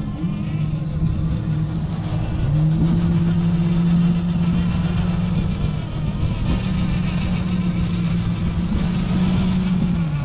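Electric motor and gear train of a Traxxas TRX-4 RC crawler whining as it climbs a sandy rock slope. The pitch shifts with the throttle, stepping up about two and a half seconds in and dropping near the end.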